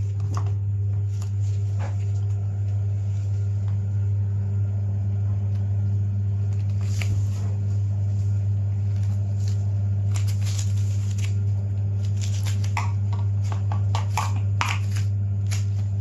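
A loud, steady low hum runs throughout. Over it come scattered clicks and rustles from gloved hands working cable wires into a plastic terminal connector, most of them in a cluster from about ten to fifteen seconds in.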